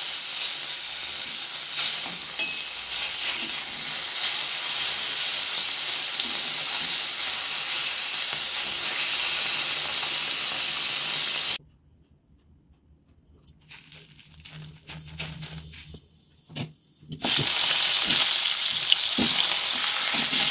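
Pieces of fish sizzling as they fry in hot oil in a wok. A little past halfway the sizzle cuts off to near quiet with a few faint knocks, then a steady sizzle returns near the end as sliced potatoes fry in the oil.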